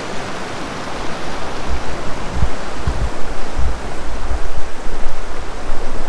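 Swollen monsoon river rushing over rocks in rapids, a steady loud roar of water. A few low rumbling thumps come through between about two and four and a half seconds in.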